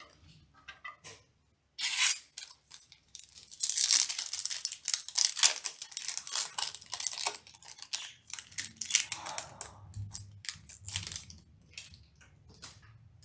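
Foil Yu-Gi-Oh booster pack wrapper being torn open and crinkled: a run of ripping and rustling from about two seconds in, easing off near the end, after a few light taps of cards at the start.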